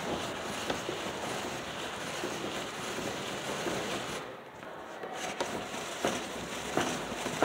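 Hand-cranked cardboard automaton: the crank and cams turning inside the cardboard box, a steady scraping rattle with small clicks as the figures on sticks move up and down. It drops off briefly about four seconds in, then starts again.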